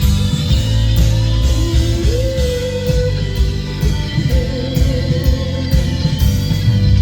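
Live rock band playing loudly, with heavy bass and drums, cymbal hits and guitar. A held high note slides up in pitch about two seconds in and is held.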